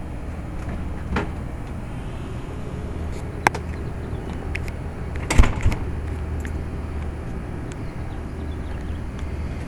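Carrier Infinity 2-ton heat pump outdoor unit running in cooling mode with a steady low hum from the compressor and fan. A few sharp knocks sound over it, the loudest about five and a half seconds in.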